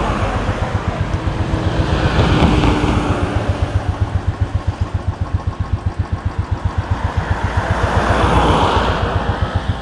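Motorcycle engine idling with an even, low beat, while vehicles pass on the road twice, swelling and fading about two and eight seconds in.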